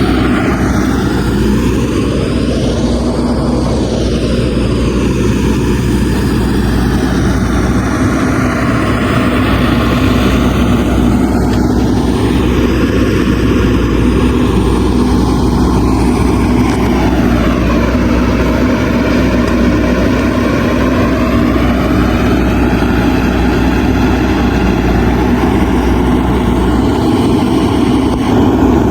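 Backhoe loader's diesel engine running steadily under working load, a constant low drone with a slowly shifting, hollow swish in its upper tones.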